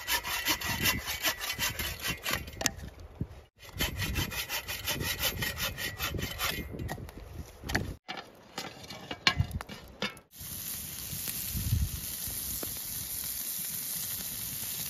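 Hand folding bow saw cutting through a dead branch for firewood, in quick back-and-forth strokes of the blade through the wood. After a break it gives way, about ten seconds in, to a steady hiss.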